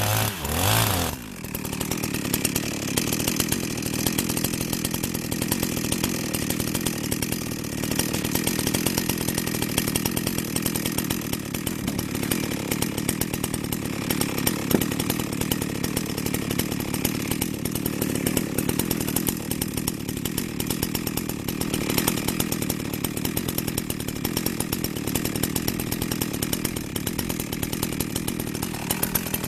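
Chainsaw cutting through firewood logs under load. Its engine pitch drops about a second in as the chain bites into the wood, then it runs steadily through the cut.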